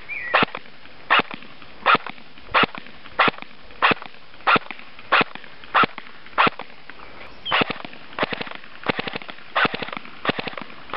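E&C SR15 KAC electric airsoft rifle firing, one shot about every two-thirds of a second. From about halfway through, the shots come quicker and more unevenly.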